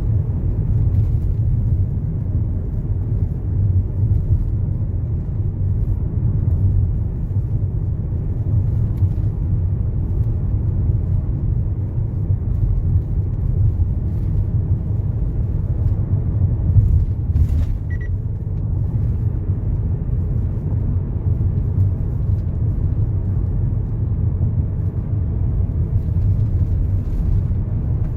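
A steady low rumble with no speech, even throughout, with a brief click a little past halfway.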